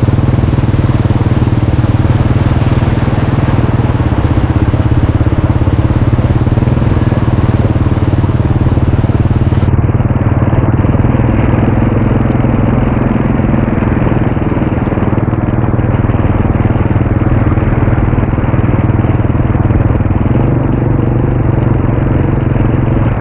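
Motorcycle engine running steadily under a continuous noisy rush while riding; the high hiss drops away abruptly about ten seconds in.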